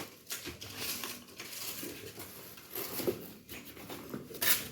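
Irregular rustling and scratching with small clicks, from parts and packaging being handled while flat-pack furniture is assembled.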